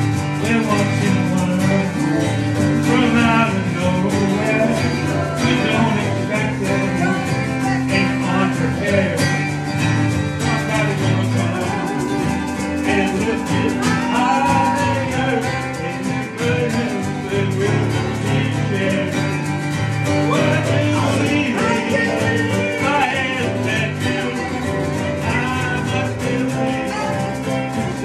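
Live band playing an upbeat song: strummed acoustic guitar and digital piano, with voices singing over them.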